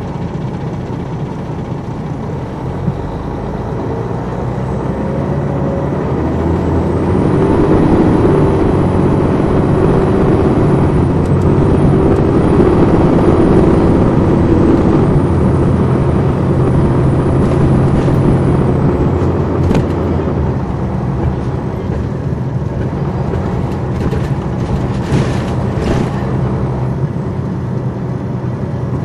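Detroit Diesel Series 60 inline-six diesel of an MCI D4000 coach, heard from on board. It grows louder over several seconds and runs strongly with a thin, wavering high whine above it, then eases off about twenty seconds in. A few sharp rattles come near the end.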